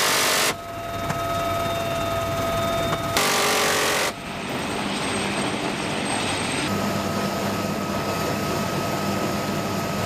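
Marine UH-1Y Venom helicopters running on the ground with rotors turning: a steady turbine whine over a low rotor hum. Two short, loud bursts of noise break in, one at the very start and one about three seconds in.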